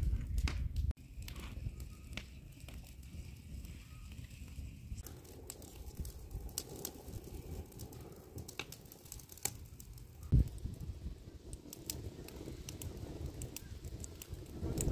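Wood fire crackling in an open stone-block cooking stove: a scattered run of sharp pops and snaps over a low rumble, with one louder thump about ten seconds in.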